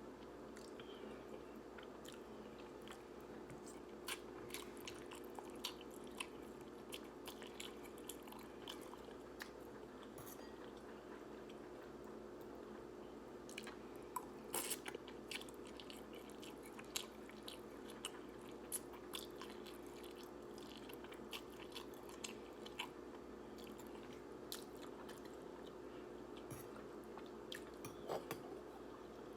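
Close-miked chewing of instant ramen noodles: irregular small mouth clicks and smacks, over a faint steady hum.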